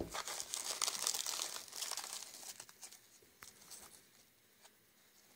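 Crinkling and crackling of a clear plastic tray and crisp nori seaweed snack sheets as fingers lift a sheet out. The crackle is dense for the first two seconds or so, then thins to a few scattered ticks.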